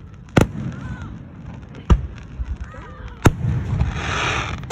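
Aerial firework shells bursting overhead: three sharp bangs about a second and a half apart, followed by a rushing noise lasting about a second near the end.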